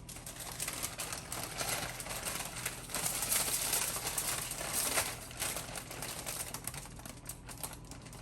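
Crinkling and rustling of a plastic pepperoni package as slices are pulled out and laid on the sandwich: a dense patter of small clicks and crackles, loudest a few seconds in.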